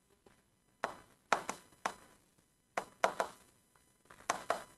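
A pen tip tapping and knocking against an interactive touchscreen board as words are written: a series of short, irregular clicks in small clusters.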